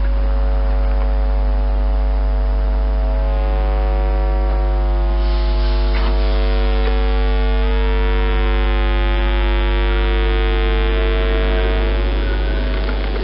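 Loud, steady electrical hum: a deep low drone with a stack of steady higher tones over it, easing slightly near the end.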